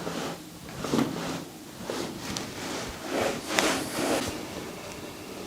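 Soft rustling and rubbing of hands on skin and clothing during hands-on treatment, with a few short, soft knocks.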